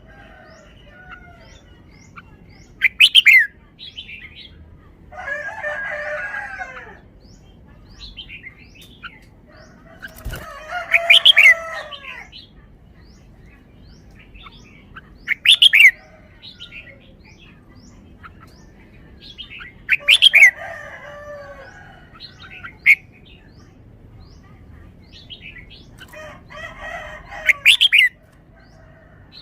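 Red-whiskered bulbul singing short, loud, warbling phrases every four or five seconds. Between the phrases other birds call, with longer lower wavering calls and faint high chirps.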